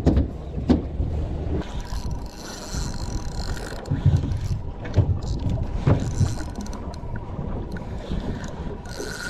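Wind buffeting the microphone on an open fishing boat, a low rumble with several short knocks from handling the spinning reel and rod. A faint steady hum sits underneath from about a second and a half in.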